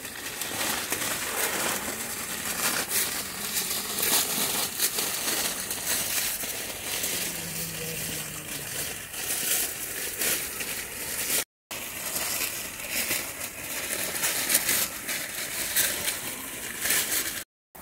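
Newspaper wrappers crinkling and tearing as they are pulled off grape bunches and dropped, a dense run of paper crackles. The sound cuts out twice for a split second.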